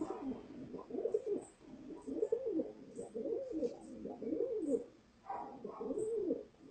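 Domestic pigeon cooing: a run of low, rising-and-falling coos about one to two a second, with a short pause about five seconds in before it coos again.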